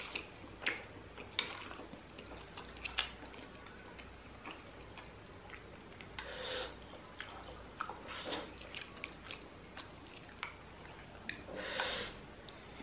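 A metal spoon clicking and scraping against a ceramic bowl of soupy momo dumplings, with a few sharp clinks in the first three seconds. Three short breathy rushes come later, from blowing on the steaming-hot spoonfuls.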